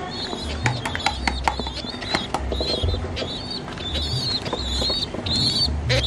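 Two-week-old domestic pigeon squabs squeaking: short, high-pitched wavering calls repeated about once or twice a second, with scattered sharp clicks.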